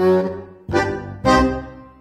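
Background music: three chords, each struck sharply and fading away, about two thirds of a second apart.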